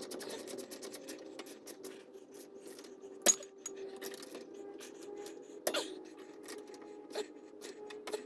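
Hand tools and metal parts clinking while a rear disc brake caliper is worked on: a quick run of clicks in the first second, then sharp metal clinks, the loudest about three seconds in, another a little before six seconds, and lighter ones near the end.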